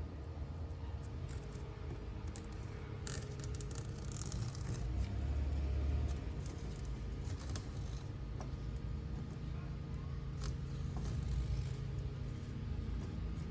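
Faint scraping and handling noises from work on a window screen and its frame, with a few sharp clicks, over a steady low hum.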